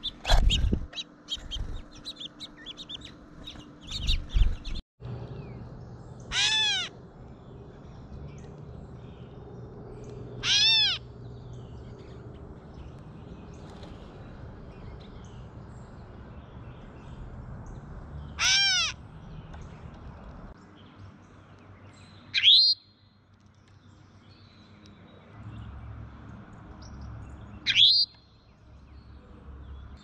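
Wild birds calling at a backyard feeder. In the first few seconds there are a few knocks and high chirps. Then come three separate calls a few seconds apart, each about half a second long and rising then falling in pitch, and near the end two short, loud calls that sweep upward.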